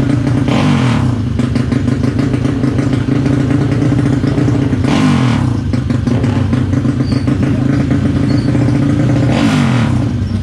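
Motorcycle engine running steadily, with three short surges about four and a half seconds apart, each bringing a rush of higher noise as the engine note slides down in pitch.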